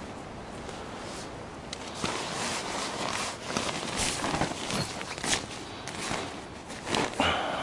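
Irregular rustling and crunching with scattered light knocks, the handling and movement noise of someone moving about.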